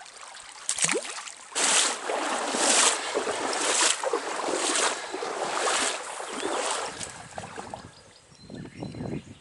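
Stream water sloshing in regular surges about once a second, the swish of legs wading through a trout stream. A brief falling squeak comes just before.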